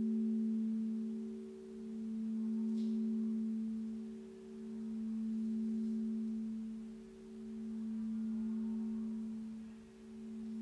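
Alchemy crystal singing bowls ringing in a sustained, pure drone of a few steady tones at once, swelling and dipping in a slow, even pulse about every three seconds.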